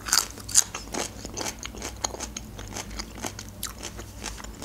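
A person chewing food close to the microphone: a run of quick, irregular wet mouth clicks and small crunches.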